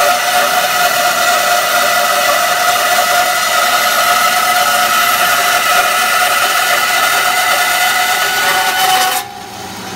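Record Power BS400 bandsaw cutting straight through a block of wood, with a loud, steady whine and hiss. This is the test cut after fitting and setting up the blade, tension and guides. The noise drops sharply about nine seconds in.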